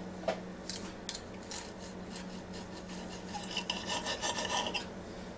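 Steak knife sawing through a cooked steak on a plate, the fork and blade clicking against the plate. A few light clicks about a second in, then a rasping run of quick sawing strokes near the end, over a steady low hum.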